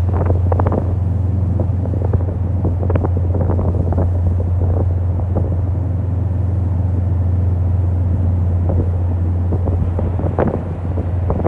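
Wind buffeting the microphone in irregular gusts over a steady low rumble.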